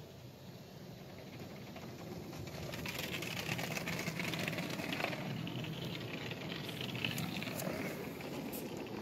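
A touch-free car wash sprays colored foam over the car, heard from inside the cabin. It is a rushing hiss with crackling spatter on the glass and body, building over the first few seconds and easing a little near the end.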